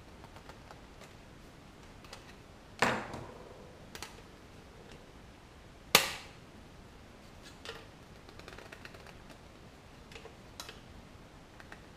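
Metal mounting plate of a car radio being fitted by hand, its tabs bent over: two sharp metallic snaps about three seconds apart, with lighter clicks and rattles between and after.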